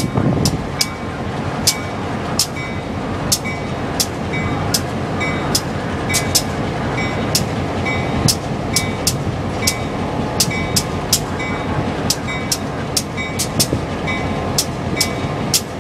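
Railroad crossing bell dinging steadily, somewhat more than once a second, over the rumble and rolling noise of a CSX freight train passing through the crossing. The low locomotive rumble is heaviest in the first second.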